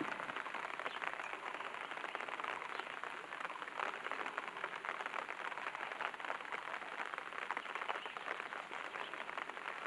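Wet scrubbing and splashing as gloved cotton hands wash an exhumed skull in a bucket of water, a steady crackle of fine drips and rubbing.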